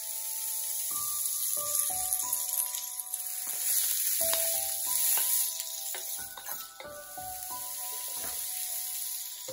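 Diced sweet potato and chard stems sizzling steadily in a hot frying pan, with the scrape and knock of a spatula stirring them.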